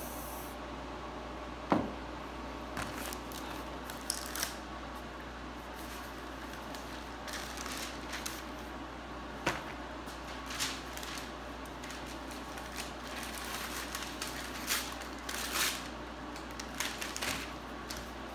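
Scattered sharp clicks and short rustling hisses, the loudest click about two seconds in, over a steady low hum.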